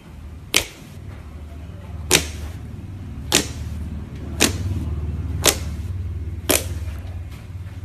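Fingertips poking into a thick slab of pink slime, trapped air popping out with six sharp pops roughly a second apart.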